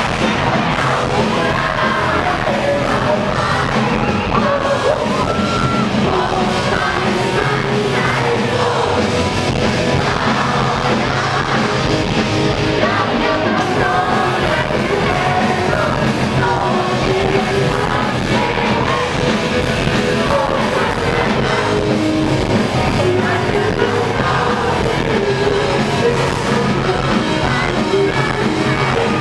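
Live rock band playing at full volume with a singer, heard from within the audience.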